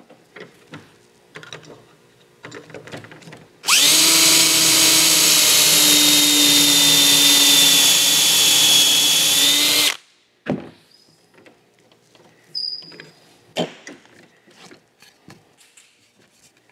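Cordless drill running steadily for about six seconds as it bores a dowel hole through a doweling jig into the edge of a board. Small clicks and knocks of the jig and wood being handled come before and after.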